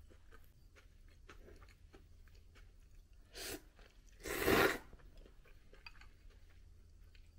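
Ramen noodles slurped from a bowl: a short slurp about three seconds in, then a longer, louder one right after. Around them, faint chewing and small clicks of chopsticks against the bowl.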